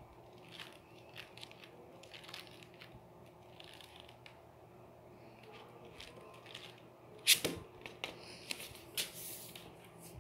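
Paper pages of a thick paperback textbook rustling and flapping as they are flipped by hand, in short soft strokes. About seven seconds in comes one louder thump with a rustle as the book is handled, followed by a few more paper rustles.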